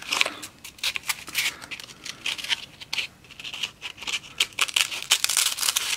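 Sandpaper rustling and scraping as it is rolled tightly by hand around a small wooden sanding drum, a quick irregular run of scratchy crackles.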